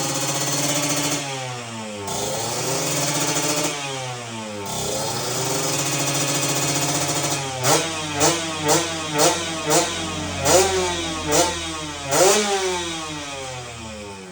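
Kawasaki Ninja RR 150's two-stroke single-cylinder engine being revved. The revs rise and fall in the first few seconds and hold steady for a while. About halfway through comes a run of about eight quick throttle blips, roughly two a second, and then the engine settles down.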